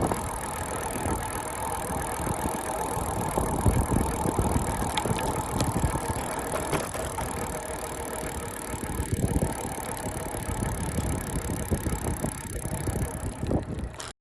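Road bicycle being ridden: steady wind rush buffeting the microphone over tyre and road noise, cutting off suddenly near the end.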